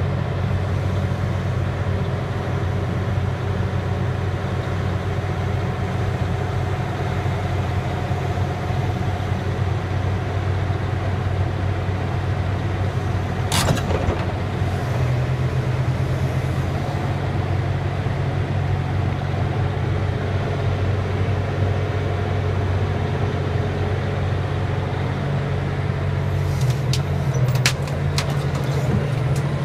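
Liebherr 964 crawler excavator's diesel engine running with a steady deep drone as the machine tracks off a lowboy trailer. A single sharp clank comes about halfway through, after which the engine note rises a little, and a few sharp clicks and knocks come near the end.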